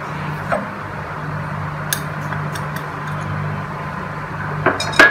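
Light clinks of glass and steel kitchenware, a few scattered taps with a louder cluster near the end, over a steady low hum.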